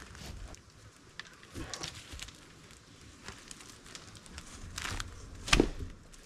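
Light crackling and rustling of dry leaf litter and twigs underfoot. Near the end there is a single heavy knock as the dead punga log is pushed and settled against the tree trunk.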